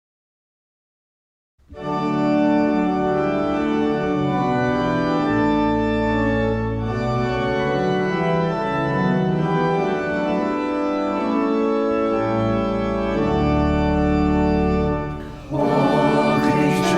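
Silent for about a second and a half, then an organ plays a hymn introduction in held chords that change every second or so. Near the end, after a brief drop, voices start singing with it.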